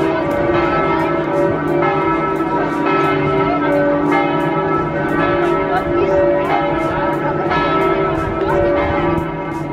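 Large bronze clock-tower bell struck over and over by the hammers of two bronze figures, each stroke ringing on into the next.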